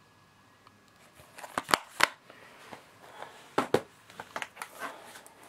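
Plastic shrink-wrap being torn and pulled off a DVD case, crinkling irregularly, with a few sharp plastic clicks as the case is handled.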